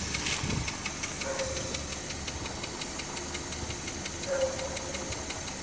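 EP6 1.6-litre four-cylinder petrol engine running with a fast, even ticking knock over the engine noise. It is a new knock, heard loudest on the right side of the engine, whose cause the owner does not know.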